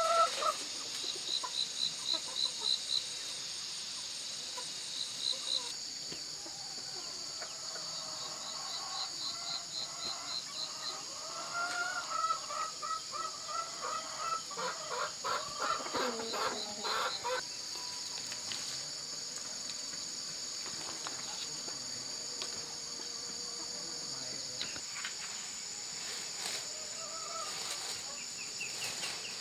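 Chickens clucking, over a steady high-pitched insect buzz with rapid chirping trills.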